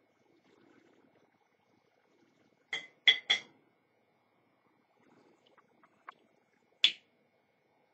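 Sharp clinks of hard objects being handled: a tobacco pipe and lighter picked up ahead of lighting. Three come in quick succession about three seconds in, then a few faint ticks and one more loud clink near the end.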